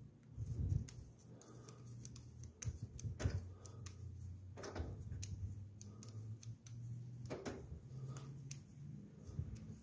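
Scattered small clicks and scrapes of fingers screwing a chrome valve-stem cap onto a tire's valve stem, with a few short rustles of handling.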